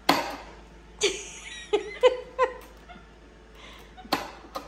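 Refrigerator ice and water dispenser being handled by a capuchin monkey reaching into the chute: a run of sharp knocks and clicks, about seven in all, some with a brief ringing tone after them.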